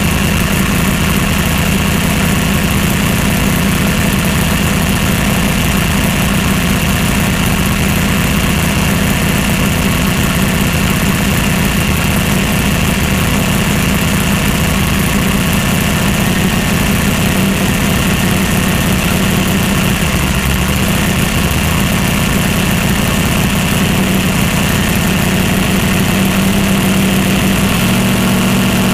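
Twin-turbo pro mod Mustang drag car's engine idling steadily and loudly, heard from inside the cockpit.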